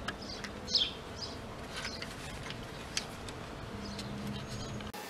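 Outdoor background of small birds chirping, the loudest chirp about a second in, and an insect buzzing near the end, with a few light clicks of wooden slats and a metal corner clamp being handled.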